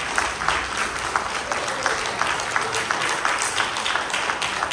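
Church congregation applauding: many hands clapping in a dense, steady patter.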